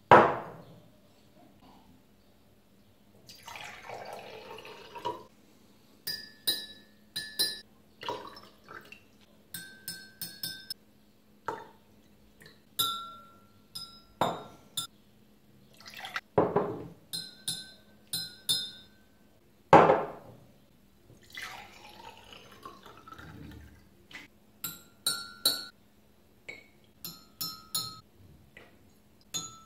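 Drinking glasses cut from green glass bottles being set down with a heavy knock, filled with poured water, and tapped with a metal rod, giving short clear clinks that ring at a few different pitches as the water level tunes them. The pour around three seconds in and again past the twenty-second mark rises in pitch as the glass fills.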